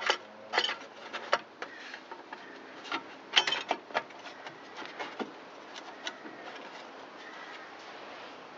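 Light clicks and taps of a small engine's sheet-metal fan housing and shroud pieces being handled and fitted into place. The taps come thick for the first five seconds or so, loudest about three and a half seconds in, then thin out to a few faint ones.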